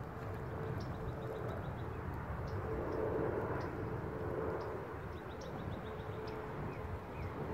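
Outdoor ambience by open water: a steady low rumble with a faint hum that comes and goes, and scattered short high chirps.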